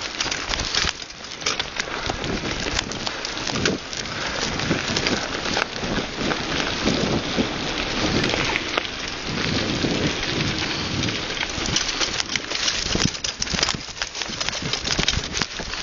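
Bicycle descending a rough downhill trail: tyres rolling over dirt and grass and the bike rattling, heard as a dense crackling rush full of small knocks.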